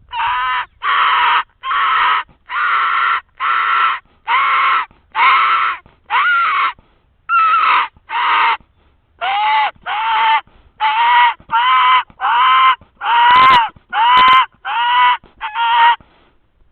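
Dying-rabbit distress call blown on a diaphragm turkey mouth call: a loud series of about twenty drawn-out squeals, roughly two a second, with a short pause midway, used to lure in a coyote.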